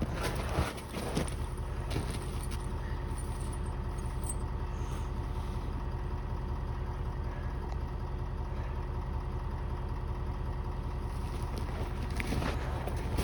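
Vehicle engine idling steadily, after a few metallic clinks of snow chain being handled in the first second.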